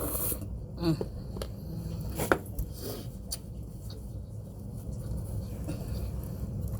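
Eating sounds from a bowl of pho: a few short clicks and mouth noises, about four in the first half, over a steady low hum.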